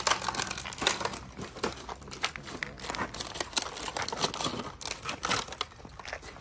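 Thin plastic food trays crinkling and clicking as they are handled and set down on the ground, a run of many irregular sharp clicks and crackles.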